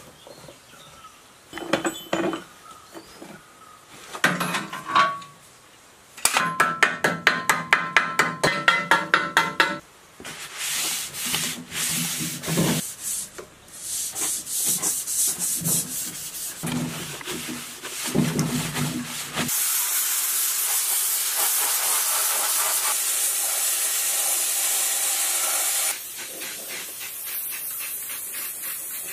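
Repeated hand brushing and scraping strokes on the bare metal bed of an old lathe, fast at first, then slower. In the last third they give way to a steady hiss that drops in level near the end.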